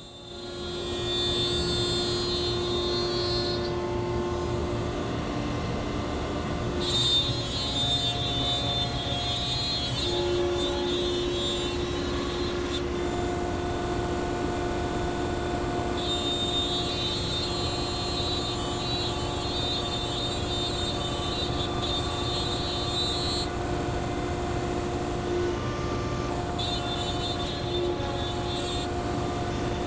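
Router mounted in a router table running steadily at speed, its straight bit cutting a quarter-inch groove in hardwood stock pushed along the fence. A steady whine sits over the cutting noise, and a higher whine comes and goes several times as the load on the bit changes.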